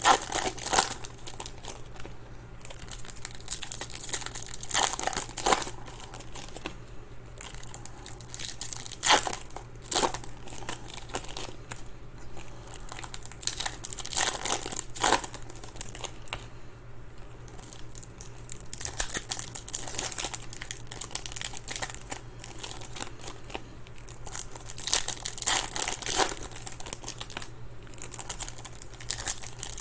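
Foil wrappers of Topps Chrome baseball card packs being torn open and crinkled, in uneven bursts of crackling over a low steady hum.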